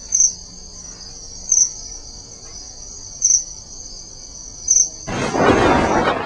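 Steady, high-pitched insect trilling with a louder pulse about every one and a half seconds, then a burst of rushing noise about five seconds in.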